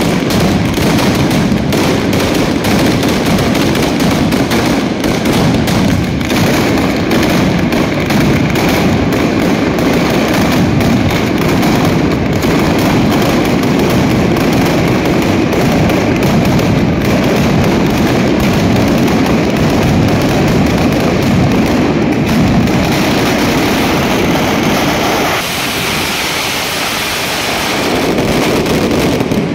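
A long barrage of ground firecrackers going off in a dense, continuous crackle of rapid bangs. It eases a little about 25 seconds in, then builds again near the end.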